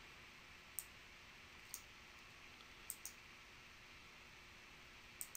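Faint computer mouse clicks over near-silent room tone: two single clicks about a second apart, then two quick pairs of clicks.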